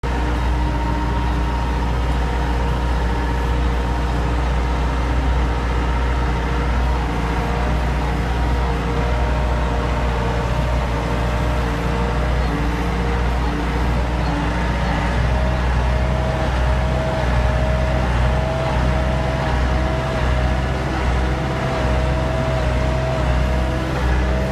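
Tractor engine running steadily, heard from the driver's seat while baling hay. In the second half a machinery tone rises and drops about once a second over the engine's drone.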